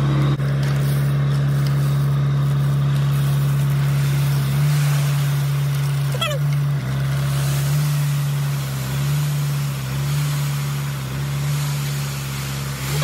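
Dump truck's diesel engine running steadily at a raised idle, with a steady low hum, while the raised bed pours out a load of ABC fill and the dirt and gravel slide out with a hiss. A couple of brief high falling squeaks sound about halfway through and near the end.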